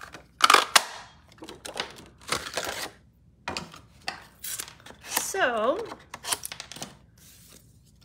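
Handheld lever circle punch clunking twice in quick succession, about half a second in, as it punches a circle through cardstock. Then several seconds of cardstock rustling and sliding as the sheet and the punched-out circle are handled.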